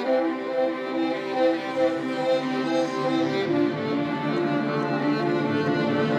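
Background music: a melody of short, evenly paced notes.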